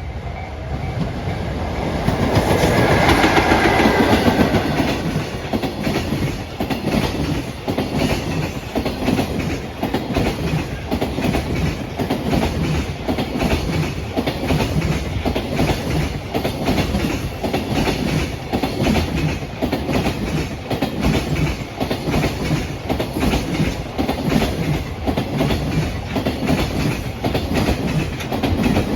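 EF66 100-series electric locomotive passing close by, loudest about two to five seconds in, followed by its train of Koki container flatcars. The wagons' wheels clatter over the rail joints in a steady, even rhythm.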